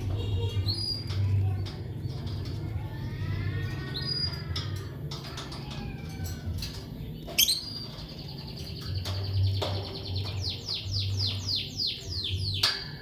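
Lovebirds chirping: scattered high chirps and sharp clicks, then a quick run of short downward-sweeping chirps, about four or five a second, near the end, over a steady low hum.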